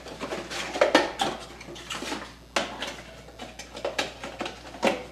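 Cardboard trading-card boxes and foil packs being handled and set down on a tabletop: a run of irregular taps and knocks.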